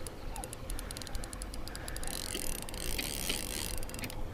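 Shimano Nasci 4000 spinning reel clicking rapidly while a hooked catfish is played, the ticking growing denser about halfway through.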